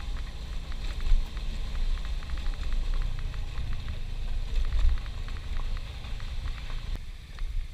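Low rumble of wind and riding noise from a scooter on a gravel dirt track, overlaid with many small irregular clicks: the faulty microphone crackling.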